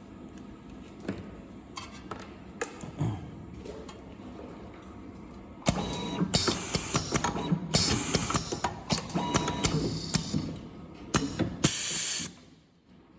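Semi-automatic USB cable soldering machine running: a few scattered clicks, then from about halfway in a stretch of mechanical clatter with loud hissing bursts, which cuts off suddenly near the end.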